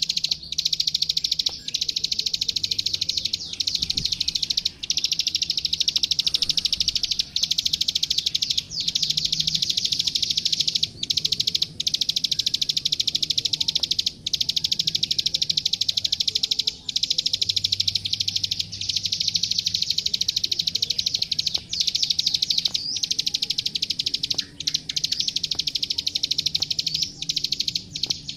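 Plain prinia (klik-klik, ciblek sawah) singing a loud, continuous song of very rapid clicking notes, broken by only brief pauses.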